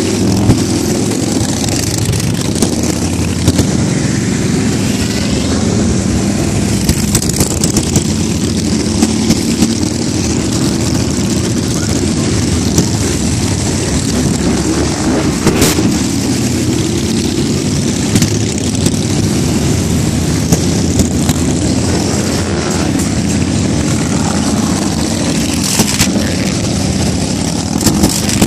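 A long column of cruiser and touring motorcycles riding past at low speed, their engines making a continuous loud rumble, with a few short sharp cracks standing out from it.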